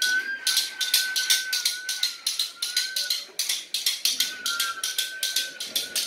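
Children's hand percussion imitating forest sounds: rapid, uneven wooden tapping, about five or six taps a second, under a thin wavering whistle in short arched phrases that pauses for about a second midway.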